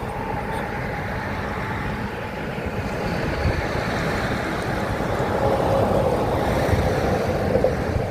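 Wind buffeting the microphone over a steady low outdoor rumble.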